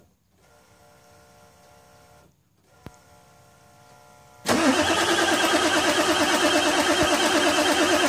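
Ford F-350 pickup engine being cranked on the starter on a cold start. After a faint hum and a single click, the cranking comes in suddenly about four and a half seconds in and goes on steadily with a fast, even pulse.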